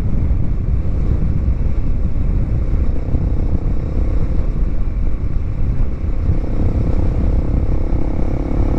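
Bajaj Dominar 400's single-cylinder engine running steadily through a Yoshimura exhaust pipe with its silencer removed, heard while riding. A steadier hum joins in during the last couple of seconds.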